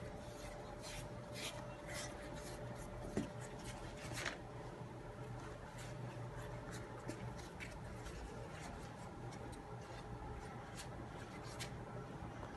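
Thin, dry sheets of yufka dough crinkling and rustling as hands crumple and tuck them into a pan. The crackles come thickly in the first few seconds and more sparsely after, with one soft knock about three seconds in.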